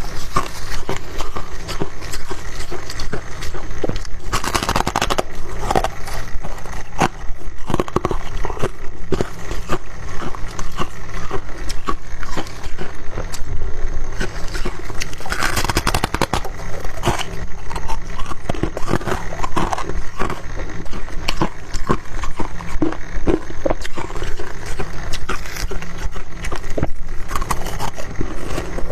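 Refrozen freezer frost crunching loudly and continuously in the mouth, close to the microphone, with many small crackles and crisp crunches.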